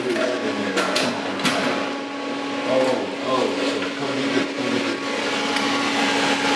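A steady mechanical hum with a constant tone, with two sharp knocks about one and one and a half seconds in.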